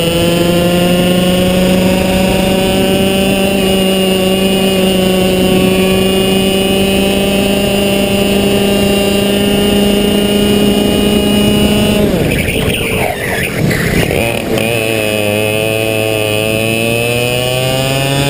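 Two-stroke racing kart engine at high revs, its pitch climbing slowly down a straight. About twelve seconds in, the throttle comes off for a corner and the note drops and breaks up for a couple of seconds, then rises steadily again as the kart accelerates out.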